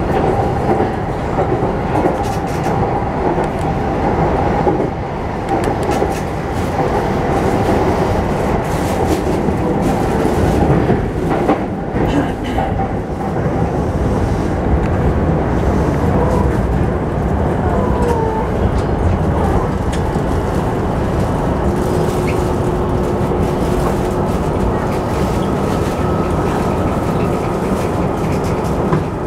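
Electric commuter train heard from the driver's cab, running into a station: steady rumble of wheels on rail with clickety-clack over the joints. In the second half it slows to a stop, with brief squeals and a steady whine toward the end.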